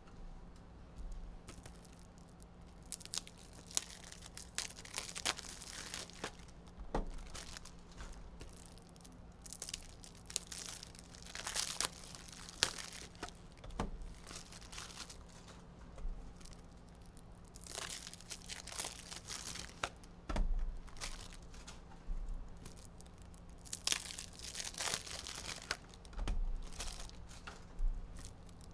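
Packaging being handled: wrapping crinkling and tearing in irregular bursts, with sharp clicks and a few light knocks.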